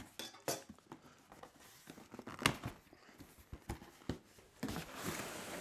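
Cardboard box being opened by hand: the flaps are folded back with scattered knocks and taps of cardboard, then a steady rustle of cardboard and paper from a little before the end.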